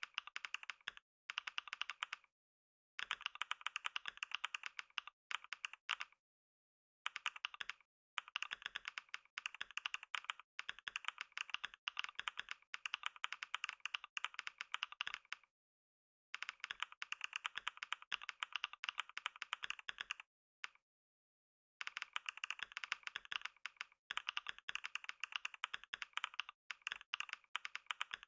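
Fast typing on a computer keyboard: a rapid, continuous patter of keystrokes in long runs, broken by several short dead-silent pauses.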